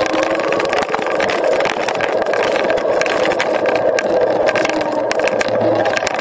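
Dualtron Eagle Pro electric scooter riding at a steady pace: the hub motors give a steady hum that wavers slightly in pitch, over tyre and road noise, with frequent small clicks and rattles.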